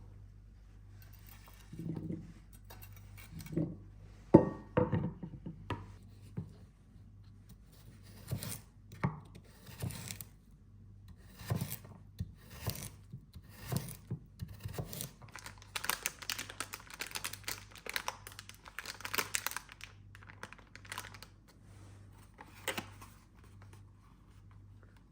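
Close handling sounds of hands working crinkly material: irregular rustling, crinkling and short tearing sounds with light knocks, busiest past the middle. A faint steady hum lies underneath.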